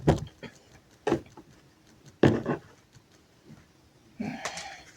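Tarot cards being handled on a table: three sharp taps about a second apart, then a short rustle near the end.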